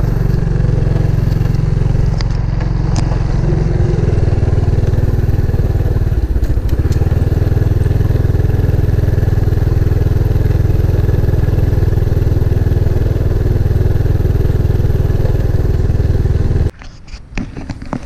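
Motorcycle engine running steadily while being ridden, with a heavy low rumble. It cuts off abruptly near the end.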